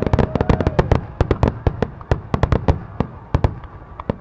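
Aerial fireworks going off in a rapid barrage of sharp bangs and crackles, several a second, thinning out over the last second or so.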